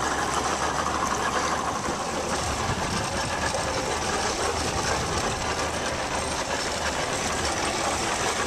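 Fishing boat underway, its engine running steadily under a constant rush of noise.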